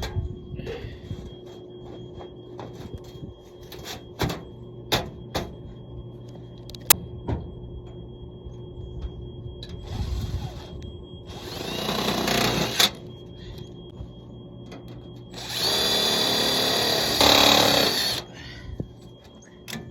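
Power drill running in short bursts, driving fasteners: a brief run about halfway through, a longer one with a rising whine just after, and a loud steady run of about two and a half seconds near the end. Scattered sharp clicks and knocks come before the drilling.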